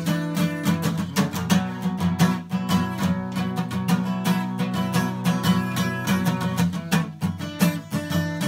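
Acoustic guitar strummed in a steady rhythm, chords ringing between strokes.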